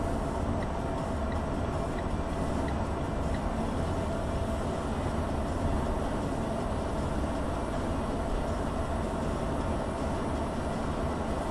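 Steady road noise inside a moving car's cabin: tyres on a wet road with the engine's drone underneath. Faint ticks about every 0.7 s can be heard in the first few seconds.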